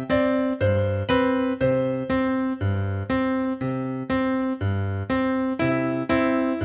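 Piano-sounding keyboard music: chords struck about twice a second in an even rhythm, each note dying away before the next.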